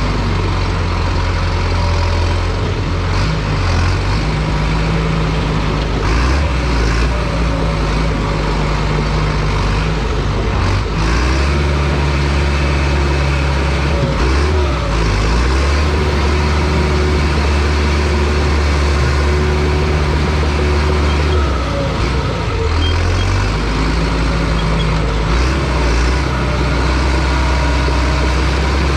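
Diesel engine of a John Deere bulldozer running under load while pushing logs. The engine note steps up and down several times as the machine works.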